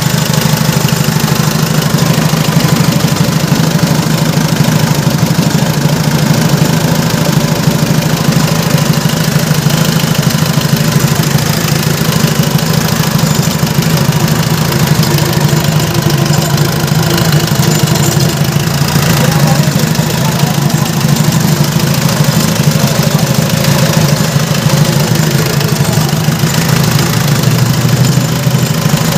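Mitsubishi 4D56 four-cylinder diesel engine running at a steady idle just after starting, on its test run after a top overhaul with the idle speed freshly adjusted.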